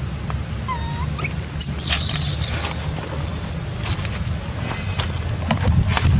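Baby long-tailed macaque crying in a series of high-pitched squeals and short whistling cries, most of them in the first half, over a steady low rumble. These are the cries of a weaning-age baby whose mother will not let it nurse.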